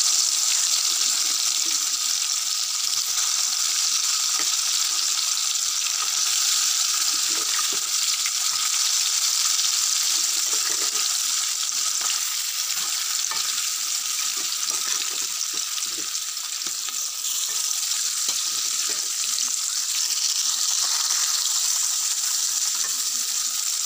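Fish pieces frying in hot mustard oil in a kadai, a steady loud sizzle, with light scrapes and taps of a metal spatula turning them now and then.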